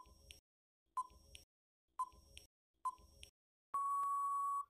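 Quiz countdown timer sound effect: four short beeps, one a second, then one long steady beep of about a second as the timer runs out.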